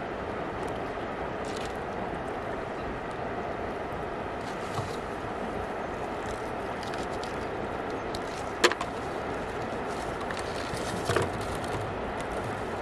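Steady outdoor hiss of wind and flowing river water, with a few sharp clicks and crackles of plastic bottles being handled; the loudest is a single click about two-thirds of the way through.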